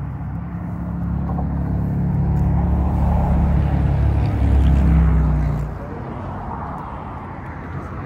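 Motor vehicle engine running close by, a low steady drone that grows louder and then drops off suddenly about five and a half seconds in, leaving fainter traffic noise.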